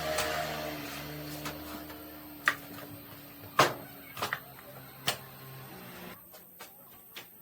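A small machine hums steadily, with several sharp knocks over it, and stops about six seconds in.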